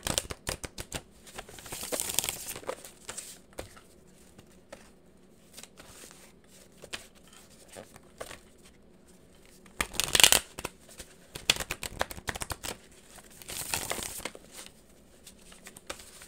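A deck of tarot cards being shuffled by hand: flurries of flicking, riffling card edges with single clicks between. Three longer bursts stand out, the loudest about ten seconds in.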